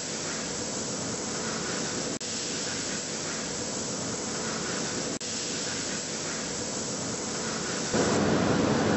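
Steady machinery hiss and hum of a workshop, with two split-second dropouts and getting louder near the end.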